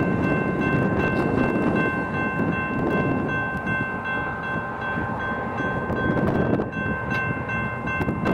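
Freight train rolling past with a steady rumble, under a chord of high tones held steadily throughout from a locomotive horn. Sharp wheel clicks come in near the end.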